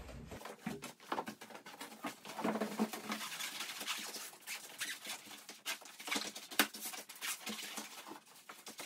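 Interlocking foam floor tiles being laid down and pressed into place by hand: a quiet, irregular run of soft scuffs, taps and rustles, with one sharper tap about two-thirds of the way through.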